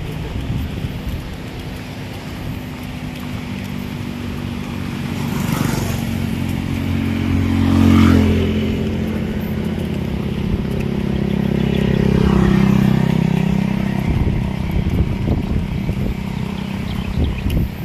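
A motorcycle engine running as it passes close by, loudest about halfway through, its sound swelling again a few seconds later before fading.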